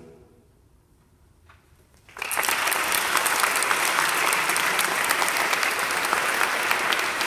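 The choir's final chord dies away into about two seconds of near silence, then audience applause starts suddenly about two seconds in and keeps going steadily.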